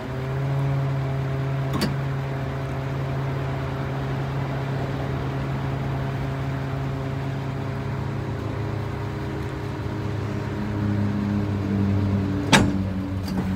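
The hydraulic wheel lift and boom of a Ford F-450 wrecker running under power, a steady mechanical hum from the engine-driven hydraulic pump as the lift rises. The seller says the hydraulics are working slowly in the cold. The note changes about ten seconds in, with a sharp click about two seconds in and another near the end.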